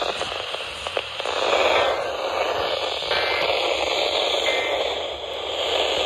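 Steady AM static hiss from the speaker of a Midland emergency weather radio tuned to 1110 on the AM band, with two short faint whistles partway through.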